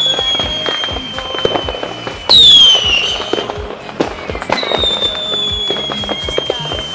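Aerial fireworks going off: a dense crackle of small pops, with high whistles. A long, slowly falling whistle is followed about two seconds in by a loud, sudden whistle that drops quickly in pitch, then another long whistle falls slowly from about four and a half seconds on.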